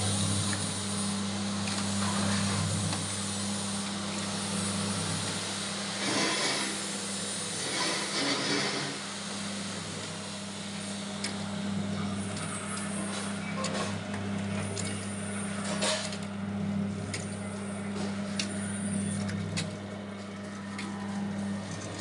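Abon (shredded-meat) frying machine running: a steady motor hum under a constant hiss, with scattered clicks and scrapes in the second half.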